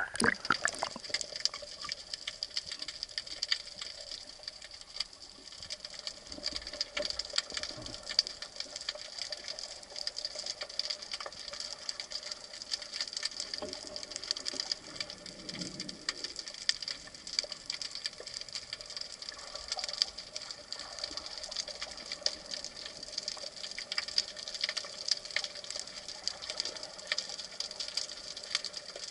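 Underwater sea ambience: a steady, dense crackle of tiny clicks, with a steady high whine running through it.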